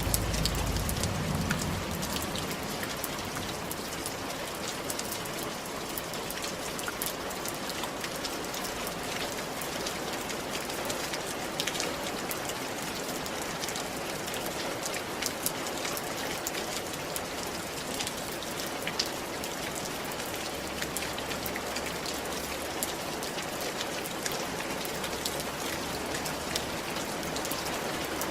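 Steady rain falling, with scattered drops pattering close by, and a low rumble in the first couple of seconds.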